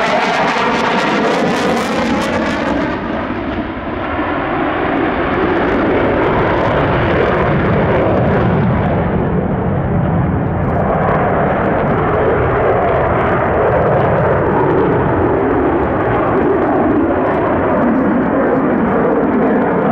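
Jet noise of a Swiss Air Force F/A-18C Hornet's twin General Electric F404 engines flying its display. The bright, swishing hiss of a close pass fades about three seconds in, leaving a loud, steady, deep rumble.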